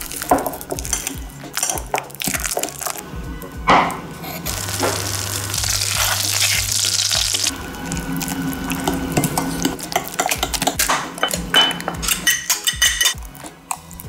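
A metal fork clinking and scraping against a glass bowl while mashing ripe bananas, with melted butter poured in and stirred, over background music.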